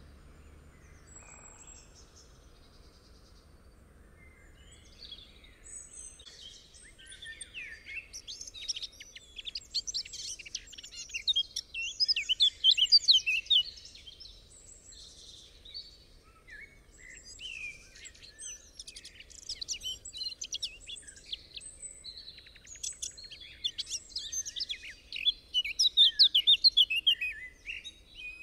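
Songbird singing in several long runs of rapid, high chirping notes, loudest about halfway through and again near the end, over a faint steady background hiss.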